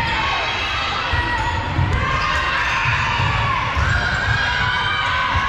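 Volleyball rally on a hardwood gym court: repeated thuds of footfalls and ball contacts, short sneaker squeaks on the floor, and players and spectators calling out.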